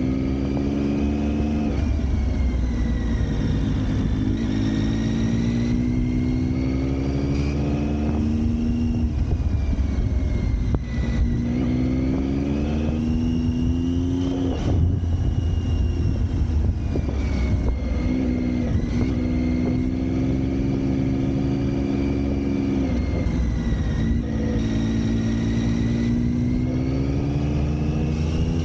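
Motor vehicle engine under way. Its pitch climbs for a few seconds as it accelerates, then drops back, again and again through the stretch, over a high whine and a steady low rumble.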